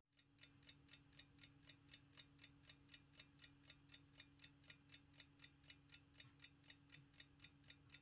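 Faint, even ticking, about three ticks a second, over a steady low hum.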